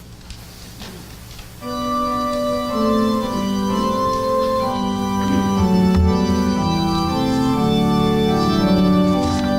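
Organ starting about a second and a half in and playing the tune of a hymn in held, changing chords, as the introduction before the congregation sings.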